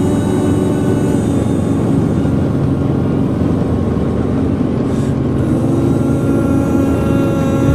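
Helicopter running: a steady, loud mix of rotor and engine noise with a steady whine over it.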